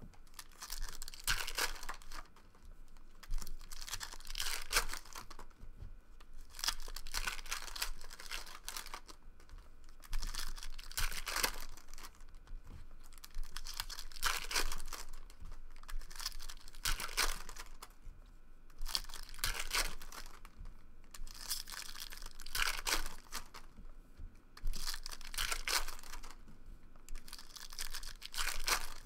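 Foil trading-card pack wrappers being torn open and crinkled, one pack after another, in about ten short bursts of tearing and rustling every two to three seconds.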